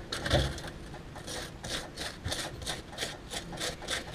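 A table knife spreading butter on toast with quick, even scraping strokes, about five a second, after a single knock just after the start.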